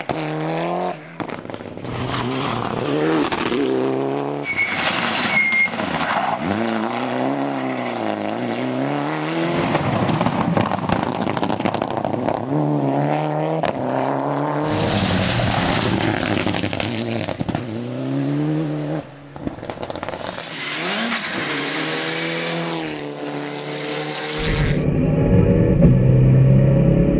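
Mitsubishi Lancer Evo IX rally car's turbocharged four-cylinder engine at full stage pace, its pitch climbing and dropping again and again as the driver works through the gears. About three seconds before the end the sound changes to a deeper, heavier engine drone heard from inside the car.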